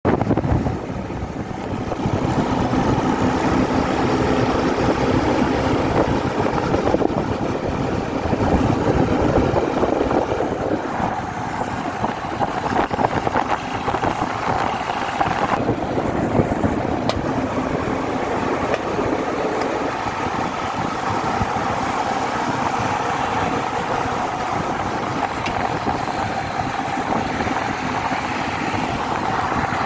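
Yamaha motorcycle engine running steadily while the bike is ridden along the road, with wind rushing past.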